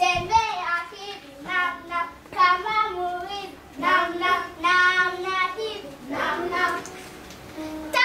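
A child singing unaccompanied, in several short phrases of held notes with brief pauses between them.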